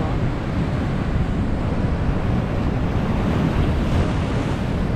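Ocean surf breaking against a rocky shore in a steady wash, with wind buffeting the microphone and adding a low rumble.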